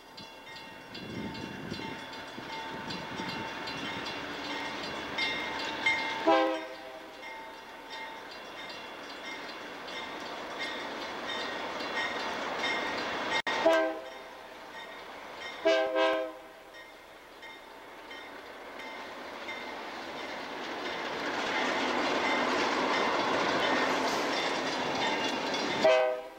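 BNSF freight train's diesel locomotives sounding their air horn in short blasts: a few around six seconds in, one near fourteen seconds, two in quick succession around sixteen seconds and one at the end. Between the blasts the engines and wheels of the approaching train grow louder as the lead units pass close by.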